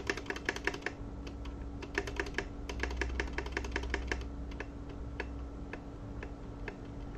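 Keys of an Akko 3087 V2 mechanical keyboard with tactile, non-clicky Akko Orange V2 switches pressed again and again, the stabilized larger keys being tested, with irregular clacks. The stabilizers rattle very little and press with even force.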